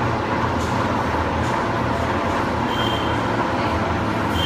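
Peak Tram funicular in motion: a steady mechanical rumble of the haul cable running through the track pulleys as the tramcar approaches the station.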